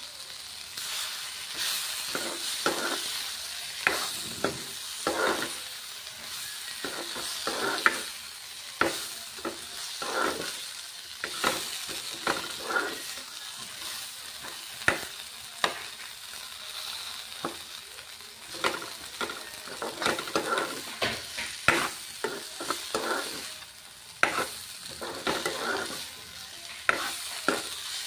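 Fiddlehead fern shoots sizzling as they are stir-fried in a wok, with a metal ladle scraping and knocking against the pan many times as they are turned.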